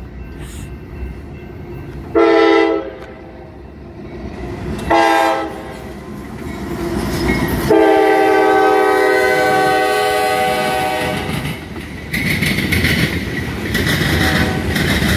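Freight locomotive's multi-note air horn sounding two short blasts and then one long blast for a road crossing. Near the end the locomotive and freight cars pass close by with a steady rolling noise of wheels on rail.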